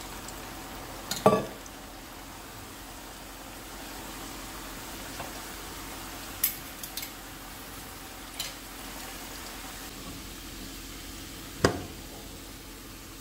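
Potato sticks frying in hot oil in a frying pan: a steady sizzle. A few knocks and clinks of dishes, the loudest about a second in and near the end.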